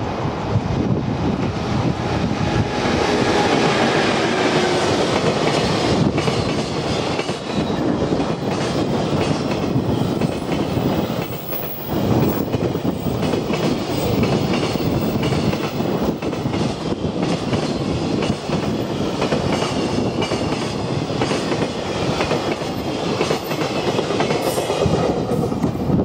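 Long freight train of container wagons hauled by an electric locomotive, passing close by: a steady rumble of the wagons with wheels clicking over the rail joints.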